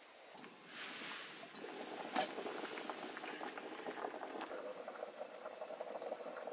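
Food cooking in a pan on the stove, a steady sizzling, bubbling crackle that swells up about a second in and carries on, with a single light knock a little after two seconds.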